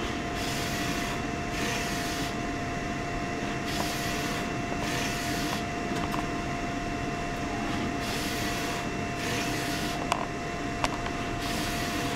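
HP Designjet 800PS wide-format inkjet printer printing. Its print carriage sweeps across the paper with a hissing swish every second or two over a steady tone, with two sharp clicks near the end.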